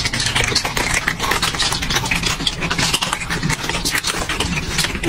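Many cats crunching dry kibble at once, a dense, steady crackle of chewing with no break.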